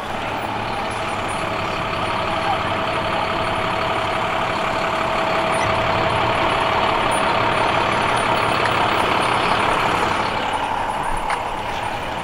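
A truck engine running steadily, growing slowly louder and then easing off about ten seconds in, with a steady hum through the middle.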